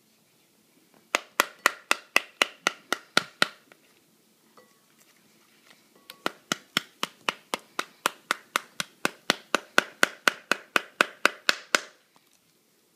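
Metal spoon striking the rind on the back of a halved pomegranate, tapping the seeds loose, about four sharp taps a second. A run of about ten taps, a pause of a couple of seconds, then a longer run of about two dozen.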